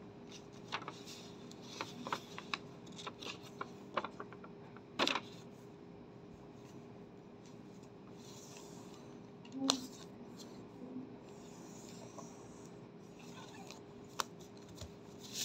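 A sheet of A4 paper being handled and folded: scattered crinkles and rustles, with a sharper crackle about five seconds in and another near ten seconds, over a faint steady hum.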